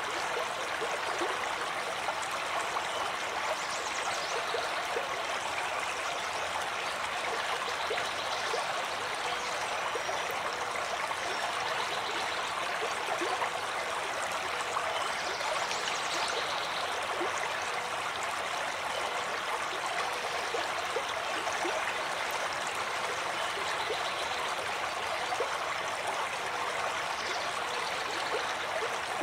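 Small waves on a choppy lake lapping and splashing against shoreline rocks, a steady wash of water with no letup.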